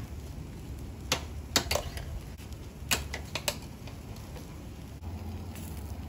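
Kebab skewers clicking and tapping on a charcoal grill: a handful of sharp clicks, some in quick pairs, in the first half, over a low steady rumble.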